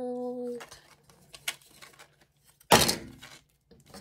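Unboxing handling: a few light clicks, then one loud thunk about three seconds in as something is set down or dropped. A brief steady tone sounds at the very start.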